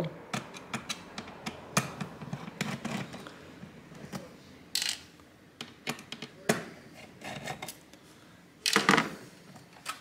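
Precision screwdriver backing screws out of a graphics card's metal bracket and heatsink, with many small sharp metallic clicks and ticks, then a few scattered ticks. Near the end comes one louder scrape as the card is handled.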